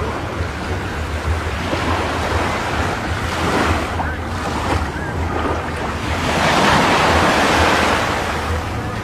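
Sea waves washing, with wind buffeting the microphone; the rushing swells louder about six seconds in, then eases.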